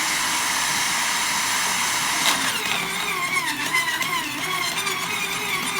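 Sun Joe CJ603E electric wood chipper's 15-amp motor running with a steady whine. About two seconds in there is a knock as a branch about 1.5 inches thick goes into the blades. The chipper then chews and cracks the wood, its pitch wavering and dipping under the load.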